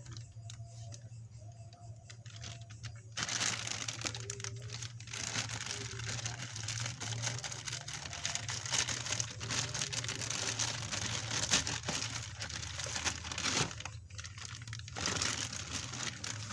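Parcel packaging being torn open and crinkled by hand: dense rustling and crackling that starts about three seconds in and carries on with only a brief pause near the end.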